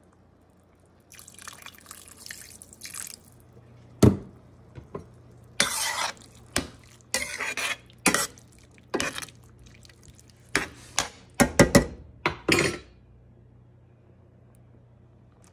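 Kitchenware clattering at a stainless-steel cooking pot of broth: a sharp knock about four seconds in, then a run of short irregular clatters, over a low steady hum.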